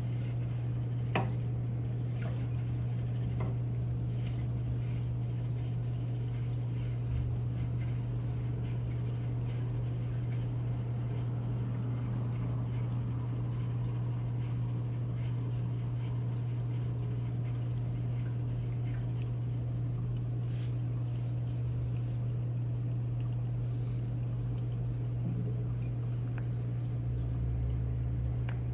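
Reef aquarium running: a steady low pump hum with water trickling over it. There is a single click about a second in, and a low rumble rises near the end.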